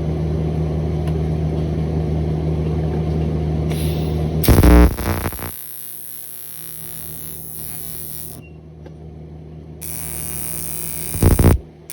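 AC TIG welding arc on aluminium buzzing with a steady, loud hum. The hum breaks off in a loud burst about four and a half seconds in, leaving a quieter hiss, and a second loud burst comes near the end.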